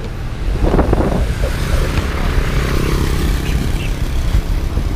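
Wind buffeting the microphone while riding, a steady low rumble, with a motor vehicle passing about two seconds in, its sound swelling and then fading as its pitch drops.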